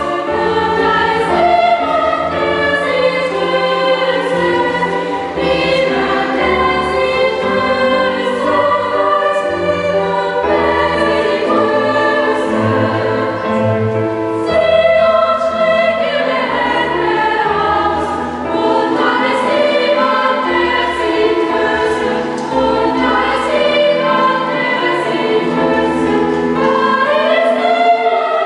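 Youth choir of mostly girls' voices singing a sustained, slow piece in several parts, with a low bowed bass line underneath and the long reverberation of a church.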